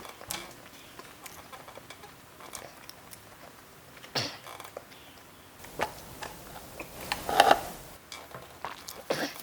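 A person chewing food with small mouth clicks and smacks, with two louder short mouth or handling sounds about four and seven seconds in.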